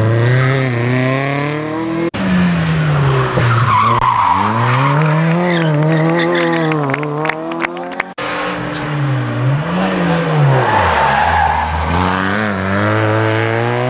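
Rally cars taking a tarmac hairpin, engines revving hard and dropping back through the gears, with tyres squealing through the bend. A run of sharp crackles comes around the middle, and the sound cuts off abruptly twice as one car gives way to the next.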